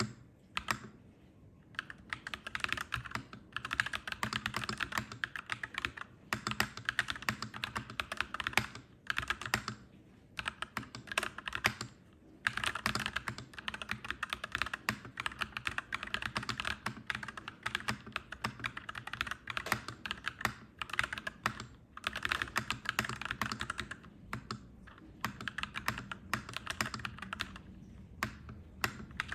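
Typing on a clacky mechanical keyboard: fast runs of key clacks lasting a few seconds each, broken by brief pauses.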